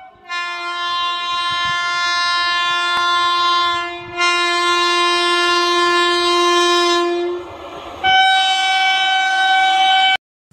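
Train horn of an approaching Indian Railways electric locomotive sounding three long, steady blasts, the third on a different chord. The last blast cuts off abruptly near the end.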